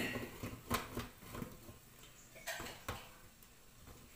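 Metal steamer bowl knocking and clinking against the rim of an electric rice cooker's pot as it is set in place: a few light knocks about a second in, then two more near three seconds.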